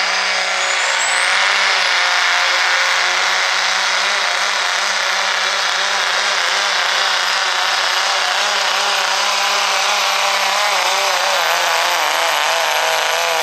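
Diesel 4x4 pickup truck pulling a weight-transfer sled at full throttle, its engine running steadily under heavy load with smoke pouring from the stacks. A high turbo whistle climbs in pitch over the first second and a half, then holds. The engine note wavers near the end.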